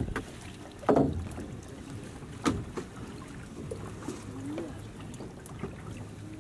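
A fishing net being hauled in by hand over the side of a wooden boat, with a thud about a second in and a sharp knock about two and a half seconds in, over a steady low hum.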